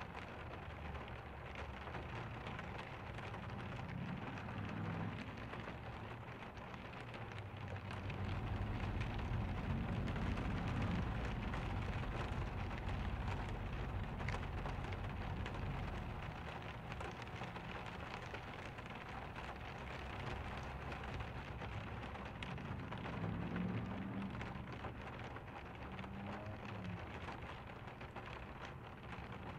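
Steady rain falling, a continuous hiss flecked with fine drop ticks. A low rumble swells for several seconds about a third of the way in and then eases.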